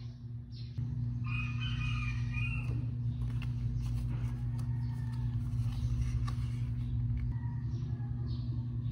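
A rooster crows once, a call of about a second and a half starting just over a second in. Under it runs a steady low hum.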